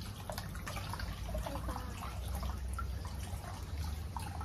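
Water dripping and trickling from a bather's hand and arm back into the water of a wooden outdoor bath tub, a scatter of small plinks over a steady low rumble.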